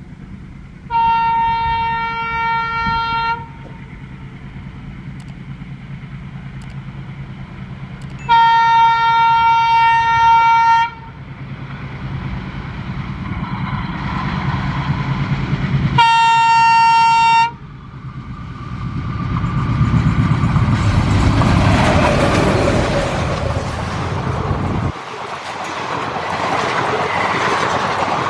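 Two ALCo diesel locomotives hauling an express train at full speed. The locomotive air horn sounds three times, two long blasts and a shorter third, a few seconds apart. Then the engine drone and rail noise build up as the train passes; about 25 s in the low engine rumble drops away, leaving the clatter of the coach wheels on the rails.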